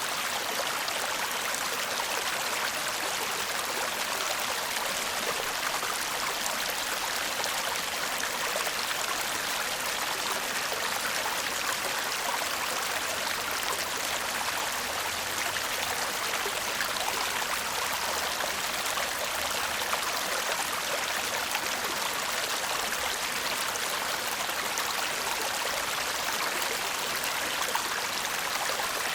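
Shallow stream babbling and trickling over stones, a steady, even rush of water.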